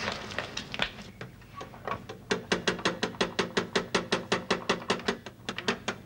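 Electric doorbell ringing: a fast, even run of ringing strikes, about eight a second, lasting some three and a half seconds, after a few scattered clicks.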